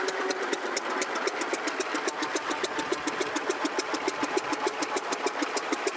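Early J. I. Case cross-motor tractor's four-cylinder vertical gasoline engine idling steadily, each firing stroke a distinct, even beat several times a second.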